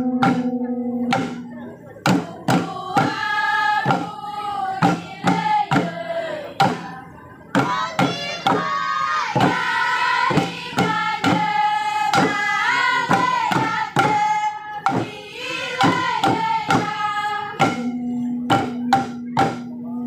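Group singing of a Papuan welcome-dance song, with strokes on hand-held tifa drums beating along.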